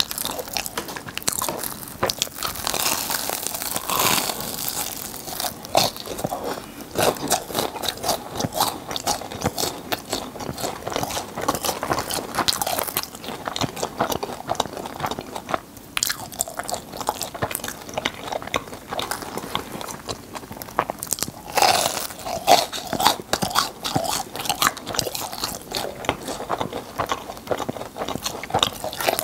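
Close-miked crunching as crisp, sugar-coated filled churros are bitten and chewed: dense crackling clicks with louder bursts of crunching a few seconds in and again about two-thirds of the way through.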